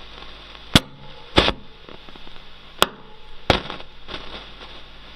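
Roland JC-120 Jazz Chorus guitar amplifier's right speaker crackling with a fault: four loud, sharp pops and a few smaller crackles over a steady hiss and hum. The owner cannot yet trace the fault and wonders whether a capacitor or a transistor is to blame; it may sit in the chorus circuit that feeds only this speaker.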